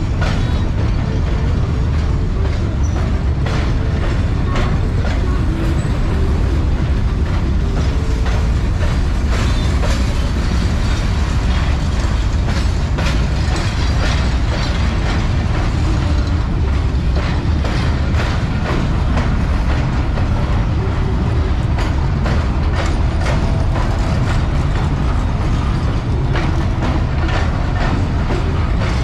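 Vietnam Railways covered freight wagons rolling past close by: a steady low rumble of steel wheels on the rails, with many quick clanks and rattles from the wagons.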